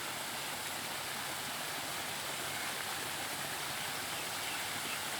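Man-made garden waterfall, its water pumped up to the top, cascading in a steady rush of falling water.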